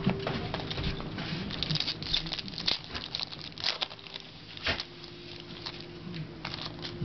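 Baseball card packs being opened: wrappers crinkling and tearing while cards are handled, in a run of irregular quick crackles and ticks.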